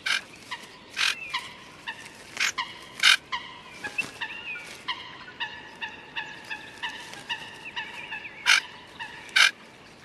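Small birds calling in a reedbed: runs of short whistled notes, about two or three a second, broken by a handful of louder, sharper calls.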